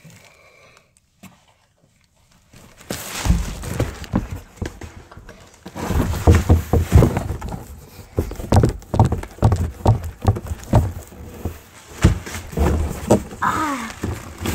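Handling noise inside a cardboard box: repeated thumps, bumps and rubbing as a child shifts about, knocking the recording phone and their body against the cardboard walls. It starts after a quiet opening and grows busy about six seconds in, with a short high vocal sound near the end.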